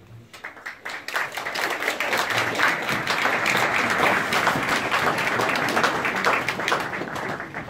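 Audience applauding with many hands clapping. It swells within the first second and dies away near the end.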